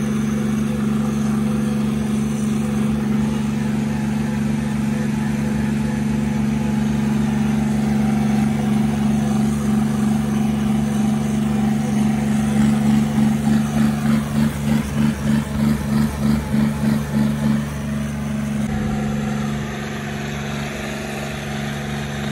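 John Deere tractor's diesel engine running steadily under way, heard from the driver's seat beside its straight vertical exhaust stack. For a few seconds past the middle the sound pulses about three times a second, then settles back to a steady note.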